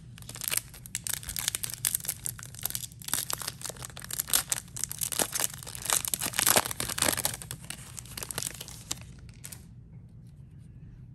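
Shiny wrapper of a Topps 2021 Series 1 baseball card pack being crinkled and torn open by hand: a dense, crackling rustle that stops about nine and a half seconds in.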